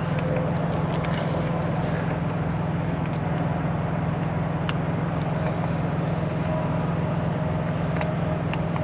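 Steady low drone of an idling engine, with a few faint clicks of metal as a seal goes onto a trailer's rear-door locking bar.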